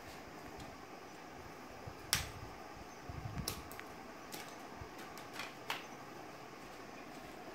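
Scissors snipping the clear plastic wrap off a rolled carpet: a handful of short, sharp snips spread out, the loudest about two seconds in, with some soft handling of the roll just after.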